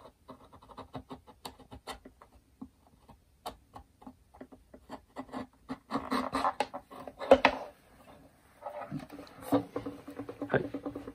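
A blade scoring a marking line across a violin fingerboard, a quick run of short scratching strokes. From about six seconds in, louder rustling and handling noise.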